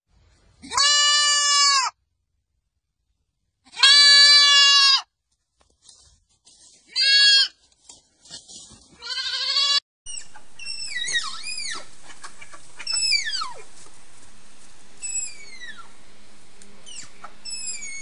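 Goat kid bleating four times: two long bleats, then two shorter ones. About halfway through this gives way to a series of high squeaky whistles, each falling quickly in pitch, over a faint steady background.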